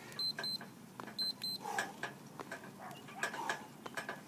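Tabata interval timer beeping: two quick pairs of short high beeps, marking the end of an interval right after a countdown. Scattered light clicks and knocks follow.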